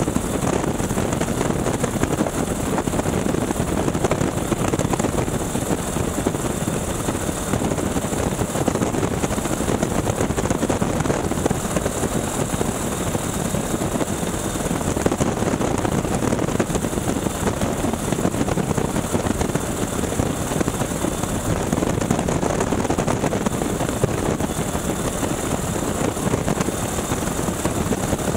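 Boeing Stearman PT-17 biplane in steady flight, heard from the open cockpit: the radial engine and propeller running evenly under a heavy rush of wind.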